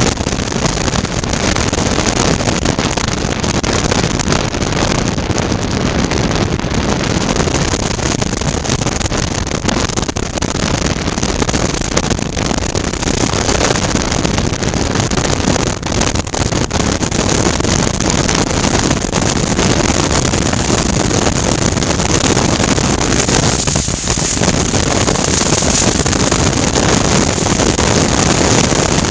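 Steady wind rush over a helmet-mounted microphone while riding, with the 2019 Suzuki V-Strom 650's V-twin engine running underneath.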